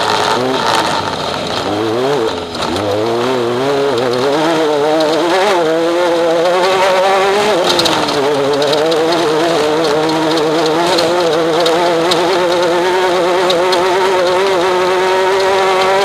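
Off-road race vehicle's engine running hard, its pitch wavering up and down as the throttle is worked, with a brief drop about two and a half seconds in. It settles to a steadier, held pitch in the second half, over a steady hiss.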